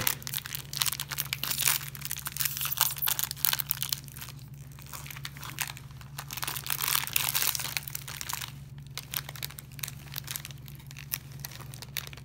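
Foil wrapper of a Britannia Good Day cookie pack crinkling and tearing as it is unwrapped by hand. It is loudest in the first few seconds and again about six to eight seconds in.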